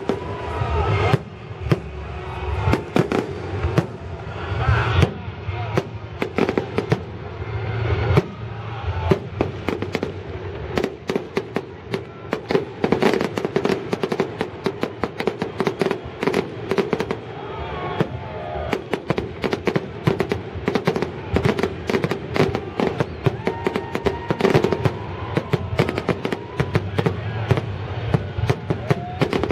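Fireworks salute: a rapid series of bangs and crackles, thickest from about ten seconds in.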